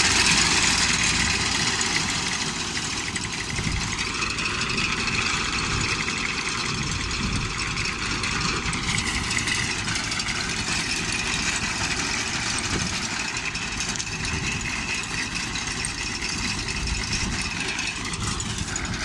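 Tractor engine running steadily while its front-mounted wheat reaper cuts the standing crop, with a faint high mechanical whine over the engine.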